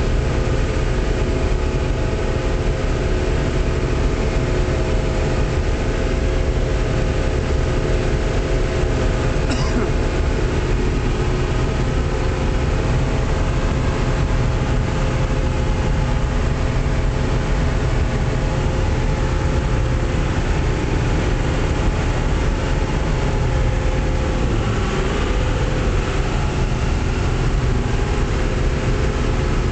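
John Deere 6600 combine running steadily under harvest load, its diesel engine giving a constant drone with a steady hum.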